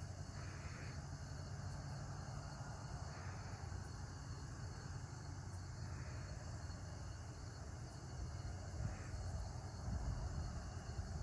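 Crickets chirping steadily over a faint low hum.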